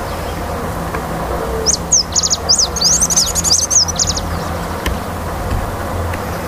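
Ringed warbling finch singing one phrase of quick, sharp high notes mixed with short rattling trills, about two seconds long and starting a little under two seconds in, over a steady low background rumble.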